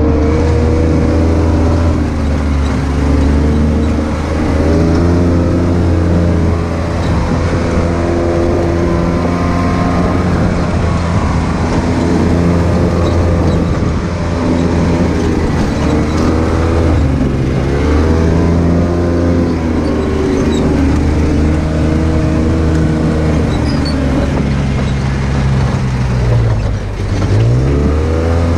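Side-by-side UTV engine running loud, its pitch rising and falling again and again as the throttle is worked along a dirt trail, heard from on board the open cab.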